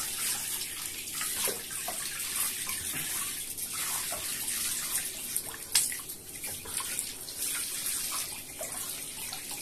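Water from a hand-held shower head spraying steadily as a wet cat is rinsed in a bathtub, a continuous hiss of running water.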